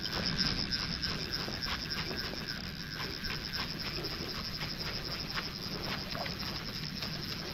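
Steady outdoor background noise with a high steady hum and scattered light clicks and ticks while a hooked fish is played on a bent fly rod.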